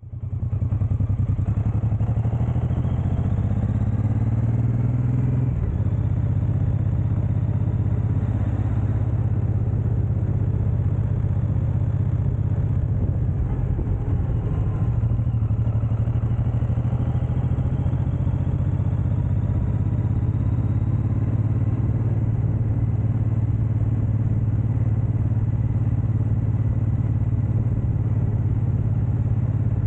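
Suzuki Boulevard M109R's V-twin engine running as the motorcycle is ridden. It rises in pitch over the first few seconds, drops suddenly about five seconds in as it shifts up, then pulls steadily.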